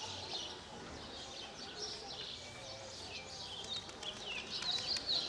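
Many small birds chirping at once, a steady chatter of quick rising and falling chirps, with faint distant voices underneath.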